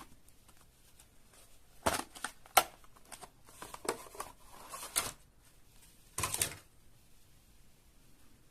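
Handling noise from an automatic wire stripper: a few scattered clicks and light metal-and-plastic rattles, with a short rustling burst near the end.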